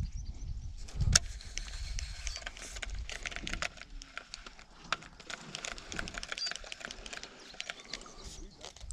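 Irregular clicks and knocks of gear being handled in a small fishing boat, with one sharp knock about a second in. Low wind rumble on the microphone dies away after the first second.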